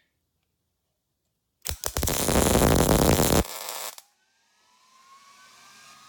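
An electric welding arc crackles loudly for about two seconds, laying a short bead of weld to build up a worn Dodge Charger door hinge, then stops. A faint whir with a slowly rising pitch starts near the end.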